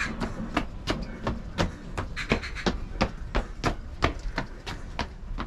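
A runner's footsteps striking the path at a steady running pace, about three sharp strikes a second.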